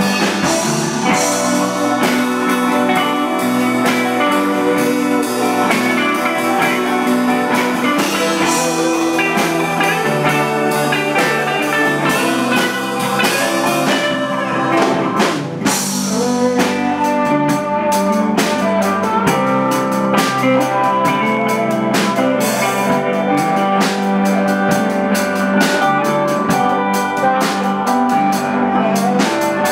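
Live band playing a slow blues with no vocals: an electric guitar plays lead over a steady drum kit.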